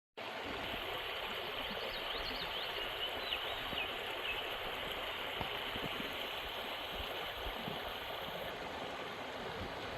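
Creek water running steadily, with a few faint high warbling notes between about two and four seconds in.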